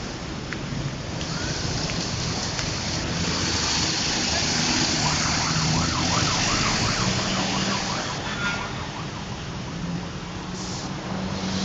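Bus engine running with traffic noise, and a faint warbling siren-like tone that wavers up and down about three times a second for a few seconds around the middle.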